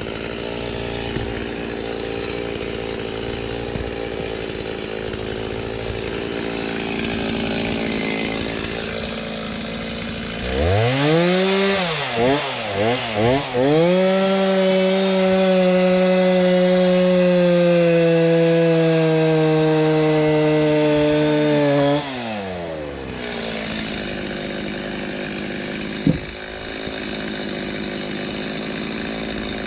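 Two-stroke chainsaw idling. About ten seconds in it is revved up with a few quick blips. It is then held at full throttle for about eight seconds, the pitch sagging slowly as it cuts through a dried oak log, and drops back to idle. A single sharp knock follows a few seconds later.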